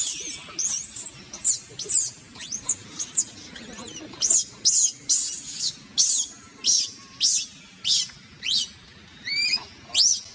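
Baby macaque screaming over and over in distress, short high-pitched shrieks with quick rises and falls in pitch, about two a second, with a quick run of stepped chirps near the end. These are the cries of an infant refused nursing by its mother.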